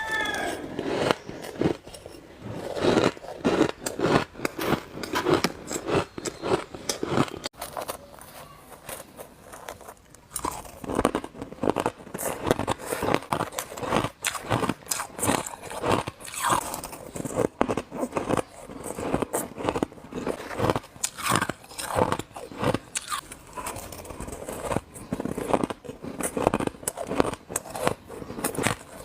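Ice being bitten and crunched between the teeth: a rapid, irregular run of sharp crunches and cracks, with chewing in between.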